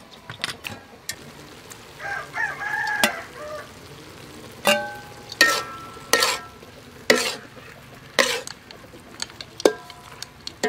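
A spatula stirring sea snails and pumpkin slices in a frying metal wok, striking the pan about six times with sharp clangs that ring briefly.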